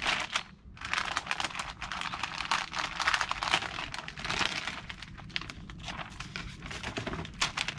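Packaging crinkling and rustling in irregular bursts as cables are handled and unpacked from their wrapping, with a short lull about half a second in.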